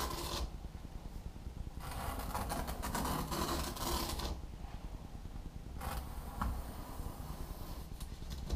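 A small knife drawn along a steel ruler, scoring through the carbon-fibre skin of a vacuum-bagged foam wing: a scratchy scraping stroke that ends about half a second in, another from about two to four seconds, then fainter scratching with a few sharp clicks near the end.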